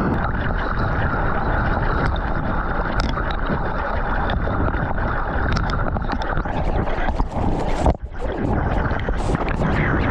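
Rushing whitewater of a breaking wave and water splashing over a GoPro Hero9's microphone during a surf ride, an even, loud rush of noise. About eight seconds in the sound dips briefly, then comes back with sharper splashes.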